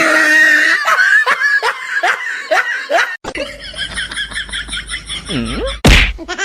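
A person laughing hard in quick repeated bursts. About three seconds in the sound cuts abruptly to another stretch of rhythmic laughing, with a short loud burst near the end.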